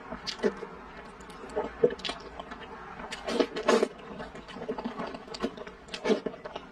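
Close-up mouth sounds of eating sticky purple rice dessert from chopsticks: wet slurps, sucking and lip smacks at irregular intervals, with chewing clicks between. The loudest slurps come about three and a half seconds in and again near six seconds.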